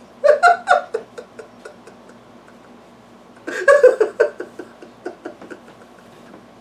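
A man laughing in two bouts, one in the first second and another about halfway through. Each bout is a run of quick 'ha' pulses that fade away.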